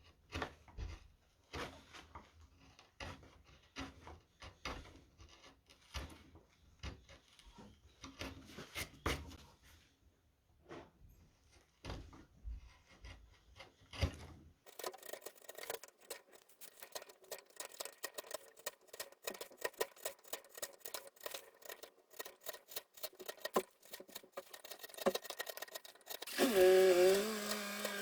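Round carving gouges paring wood from a spoon blank: irregular short cutting strokes and scrapes. From about halfway the strokes come faster and crisper. Near the end there is one louder scrape with a squeaky pitched tone.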